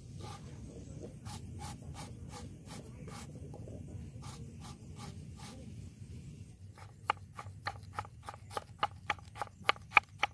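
A large knife slicing and chopping a small red onion on a wooden cutting board. Light, even knife strikes at about three a second give way, about seven seconds in, to louder, quicker chopping at about four strikes a second as the onion is minced.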